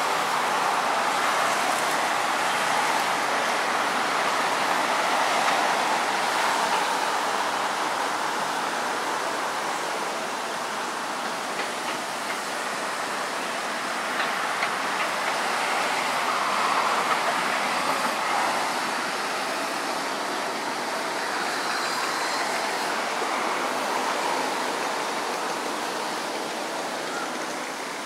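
Steady road traffic noise: buses and cars passing on a busy road, a continuous hiss of tyres and engines that swells and eases as vehicles go by.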